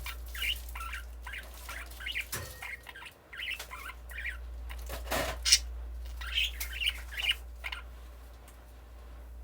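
Budgerigar chirping in short, repeated notes, with a sharp louder noise about five seconds in and a steady low hum underneath.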